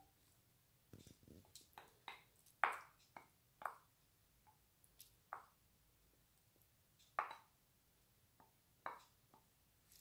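Wooden spoon knocking and clinking against glass bowls as relish is scraped out of a small glass bowl: a scattered run of short, sharp knocks, a few of them louder.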